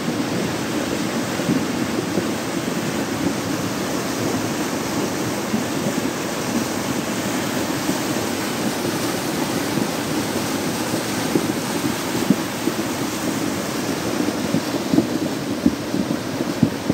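Steady rushing of muddy floodwater in a swollen gully running near overflow after heavy rain, with a few short knocks in the second half.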